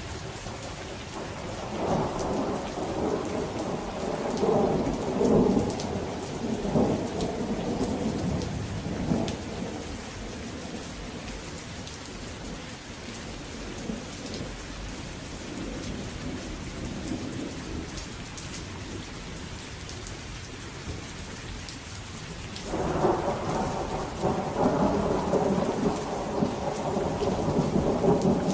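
Steady rain with rolls of thunder: one rumbling from about two seconds in for several seconds, and another breaking suddenly and louder near the end.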